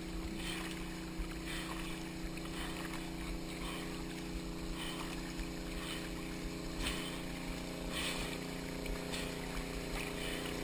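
Muddy pond water sloshing and splashing around a chest-mounted action camera as its wearer wades through, under a steady low hum.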